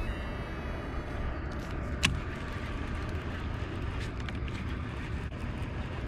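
Baitcasting reel after a cast: a faint high whine fades out in the first second or so, then a single sharp click about two seconds in, over steady low wind noise on the microphone.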